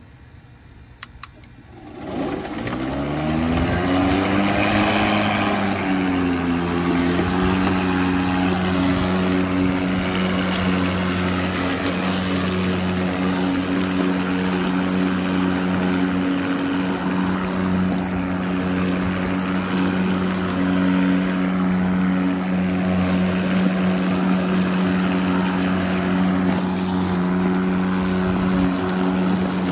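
Two quick clicks, then the RYOBI 40V HP brushless 20-inch cordless mower's electric motor and blade spin up with a rising whine about two seconds in and settle into a steady hum with the whoosh of the blade, running on as it cuts grass.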